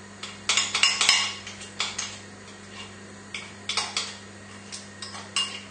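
A spoon mashing and mixing butter with thyme, knocking and scraping against the bowl in irregular clicks, busiest about half a second to a second in.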